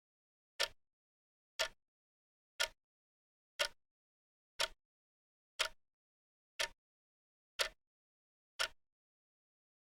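Wrist watch ticking steadily, one sharp tick a second.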